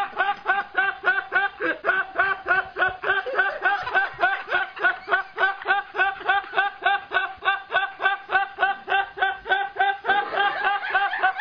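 A man laughing hard without a break, a rapid, even run of high-pitched laugh pulses at about five a second.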